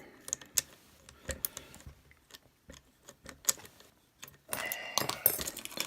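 Small sharp metallic clicks and ticks of a padlock and lock picks being handled and worked, with a denser run of clicking and rattling near the end.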